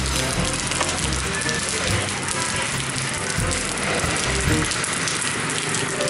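Water from a leaking water tank falling and splattering onto a concrete floor: a steady, dense patter like rain.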